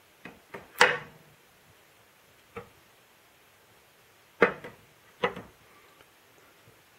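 Sharp clicks and knocks of small stainless steel calibration weights being handled with metal tweezers, lifted off a plastic scale platform and set into a plastic case: three near the start, the loudest about a second in, one more in the middle, and a few close together after about four seconds.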